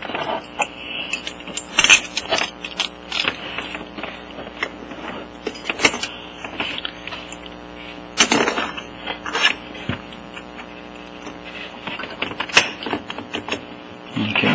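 Long steel head bolts clinking and tapping against the metal cylinder head as they are dropped through it and worked into place by hand. The clicks come irregularly, a few louder clanks among them.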